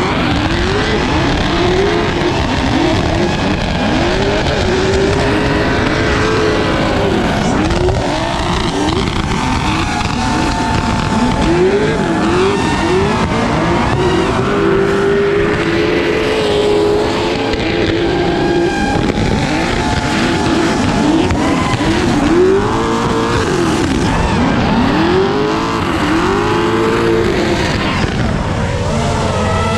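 Drift car engines revving up and down again and again, with tyres squealing as the cars slide, over a steady rushing noise.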